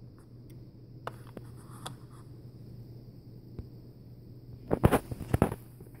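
A chrome Zippo lighter handled in its cardboard box: a few light clicks, then a quick cluster of louder knocks and scrapes near the end as it is turned over and set back down. A low steady hum runs underneath.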